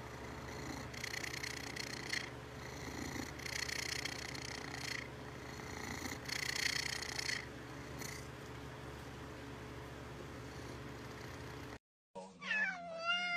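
Domestic cat purring right at the microphone, a raspy purr that swells and fades with each breath, about every second and a half. Near the end a cat meows with a falling pitch.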